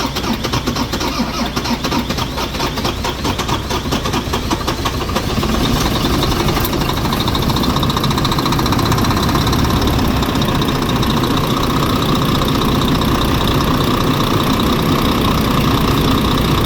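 Rebuilt Volvo D13 six-cylinder diesel truck engine being cranked by the starter. It catches about five seconds in and settles into a steady idle, its first start after the rebuild.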